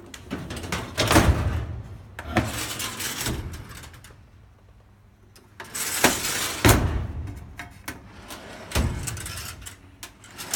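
Objects being handled and moved: clattering, rattling and sliding noises in several bursts with sharp clicks, with a quiet pause about halfway.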